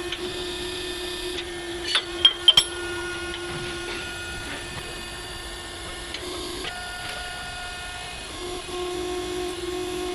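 A steady machine hum that drops out for a couple of seconds past the middle. It is broken about two seconds in by a few sharp metallic clinks.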